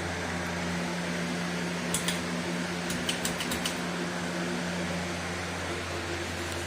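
Harbor Breeze Armitage ceiling fan running with a steady low hum and airy hiss. A handful of sharp clicks come about two seconds in and again a second later.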